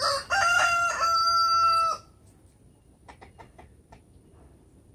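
Rooster crowing once: a short opening note, then one long held note of about a second and a half that cuts off sharply. A few faint ticks follow.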